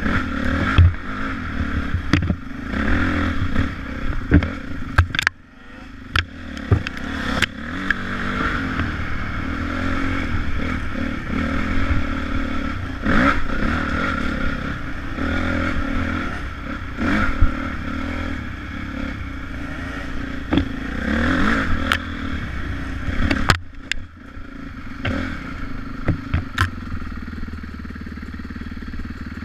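Dirt bike engine heard from the rider's own helmet, revving up and dropping back again and again as it is ridden along a rough forest trail, with many sharp clattering knocks from the bike and ground. About 23 seconds in it falls back and runs more evenly and quietly as the bike slows to a stop.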